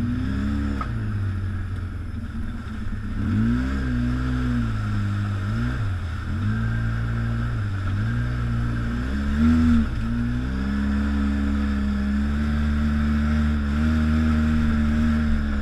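ATV engine running at low speed, its pitch rising and dipping a few times as the throttle is worked over rough, rocky trail, then holding steady for the last few seconds.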